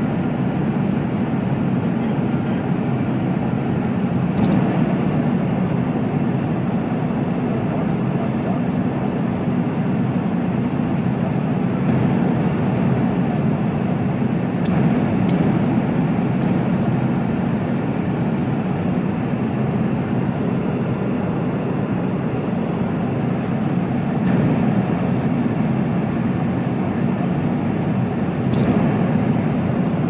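Steady low drone of an airliner cabin, engine and air-flow noise, with a few light metallic clicks of the seatbelt buckle being latched and released, several of them close together around the middle.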